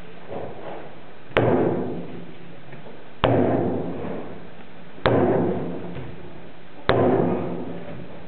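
Four loud, sharp thuds, evenly spaced a little under two seconds apart, each ringing out for about a second in the hall, keeping time for a shotokan karate kata performed in unison on stage.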